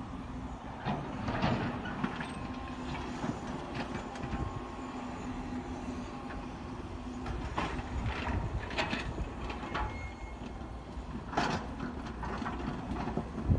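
Diesel engine of a tracked excavator running steadily, with irregular metallic clanks and knocks from the machine working, the loudest near the end.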